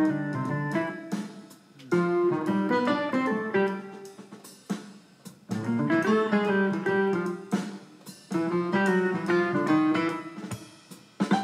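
Background music: a guitar-led instrumental with drums, in phrases that start strongly every few seconds and fade away.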